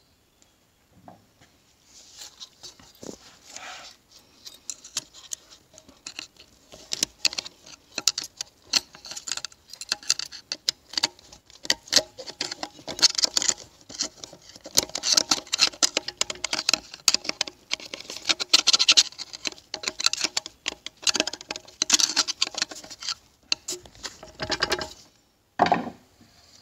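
Rapid small metal clicks and scrapes as a snap ring is worked into its groove with a hand tool inside a TH350 automatic transmission case. The clicking starts about two seconds in, gets busier and louder through the second half, and stops shortly before the end.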